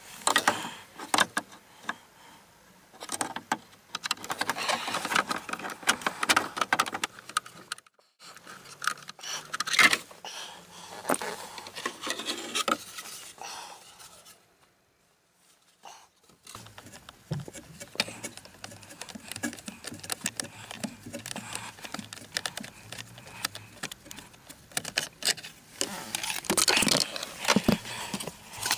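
Hands and tools working on plastic trim and ducting under a car's dashboard: irregular clicking, rattling and scraping, with a short quiet pause about halfway through.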